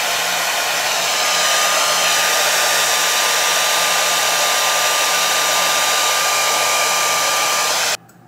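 Handheld blow dryer running steadily, drying lace spray to set a wig's lace: an even rush of air with a thin steady whine, switched off abruptly near the end.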